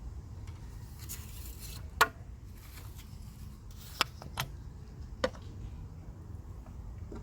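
A few sharp clicks and knocks of parts being handled under the bonnet while the engine oil is topped up, the loudest about two seconds in, over a steady low rumble.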